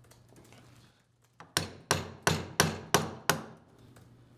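Mallet tapping the handle of a crescent wrench six times, about three strikes a second, each with a short ring, starting about a second and a half in. The taps are meant to break loose a tight plug and stuffing box on a valve bonnet.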